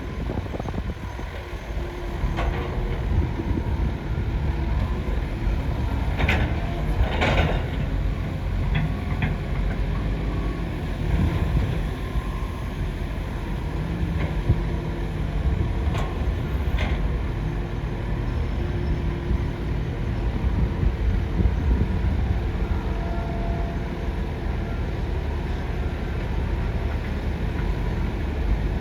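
Excavator running with a steady low engine rumble, with a few short clanks about six to seven seconds in and again near sixteen seconds.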